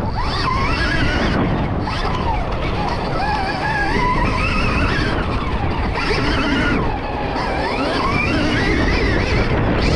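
Stark Varg electric dirt bike's motor whining, its pitch rising and falling smoothly with the throttle, over a heavy rushing noise of wind on the microphone.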